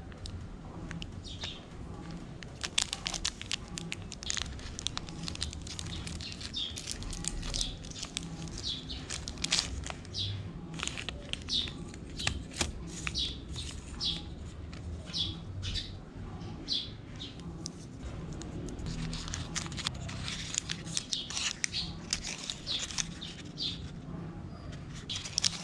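Candy bar wrapper crinkling and tearing as it is opened, in many short crackles, while birds chirp repeatedly in the background.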